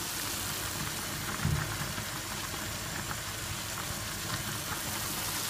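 Steady hiss of cooking on a gas hob: minced meat and onion frying in a wok while a saucepan of orzo boils hard and foams. A dull knock sounds about a second and a half in.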